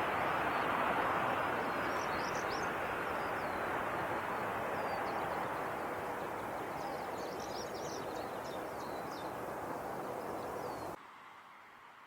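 Jet airliner engine noise, a steady rush that slowly fades as the plane moves away, with small birds chirping over it. The sound cuts off suddenly near the end.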